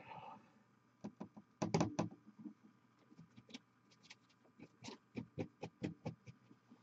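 Faint scattered clicks and taps from handling small painting supplies on the work surface, with a couple of sharper clicks about two seconds in and a quicker run of clicks near the end.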